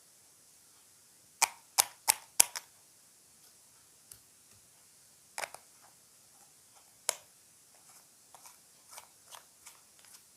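Clear slime being pressed and worked by hand, giving sharp clicking pops: four loud ones in quick succession about a second and a half in, then scattered single clicks, fainter towards the end, over a faint steady hiss.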